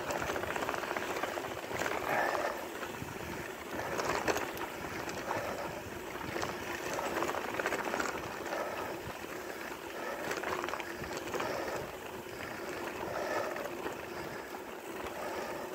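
Bicycle tyres rolling over a sandy gravel road: a steady crunching hiss that swells and fades irregularly, with scattered small clicks.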